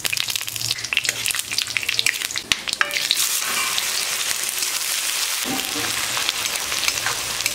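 Whole spices crackling and spitting in hot oil in a kadai, then, about three seconds in, a louder steady sizzle as sliced onions hit the oil and are stirred with a metal spatula.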